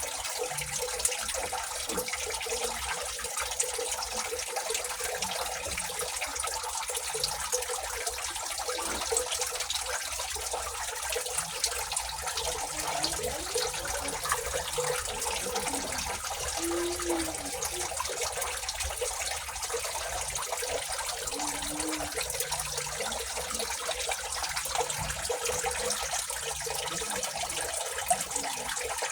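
A steady hiss like running water, unbroken throughout, with small scattered ticks.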